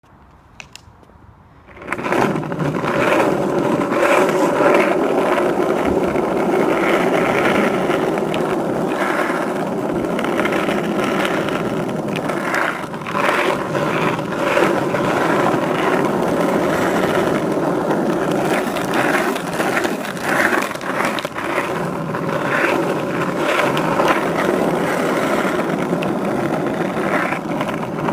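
Skateboard wheels rolling over rough pavement, a steady rumbling scrape with scattered small clicks and knocks from the board, starting about two seconds in.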